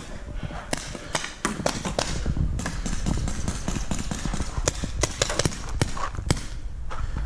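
Paintball markers firing, a string of sharp pops at irregular intervals, over a low rumble from the camera wearer moving.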